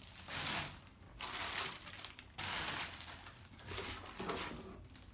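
Plastic crinkling and rustling in several short bursts, about a second apart, as the sleeved cards and bagged pieces of a boxed board game are handled and rummaged through.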